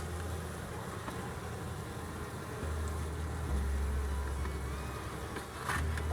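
Honeybees buzzing around the hive in a steady low hum, with a brief rustle about five and a half seconds in.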